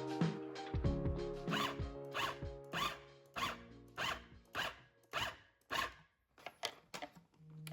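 A steady series of short rasping strokes, about nine of them roughly two-thirds of a second apart, over fading background music, followed by a few lighter clicks near the end.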